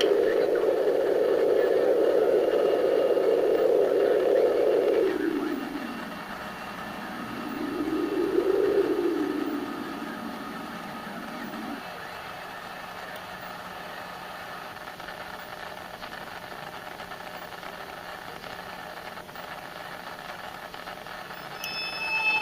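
A band of rushing, hiss-like noise that sweeps in pitch. It holds steady for about five seconds, then falls and fades, swells and rises again briefly, and falls away a few seconds later. After that only a faint steady hum of higher tones remains.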